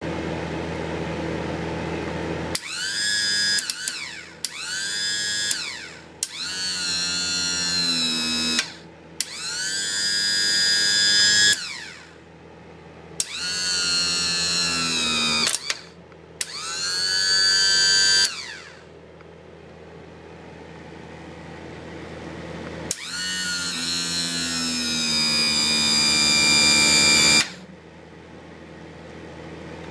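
Electric motor and hydraulic pump of an outboard power trim/tilt unit running in seven bursts, switched on and off by push-button, each starting with a click. The whine drops in pitch just after each start, then holds while the trim ram moves; the last run is the longest, about four seconds.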